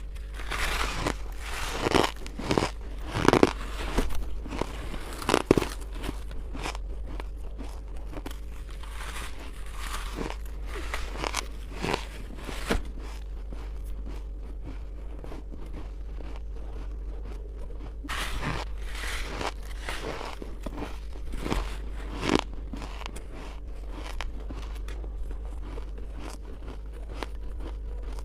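Close-up biting and chewing of chunks of freezer frost ice. Sharp crunches come in clusters, with quieter chewing between them.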